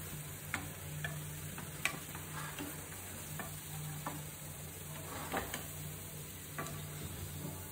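Puffed rice vadas sizzling as they shallow-fry in oil, with a steel slotted spoon clicking and scraping against the nonstick pan several times as the fritters are lifted out. A steady low hum runs underneath.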